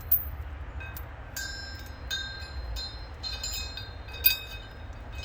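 Light metallic clinks, about six spread over a few seconds, each ringing briefly at the same few pitches, over a steady low rumble.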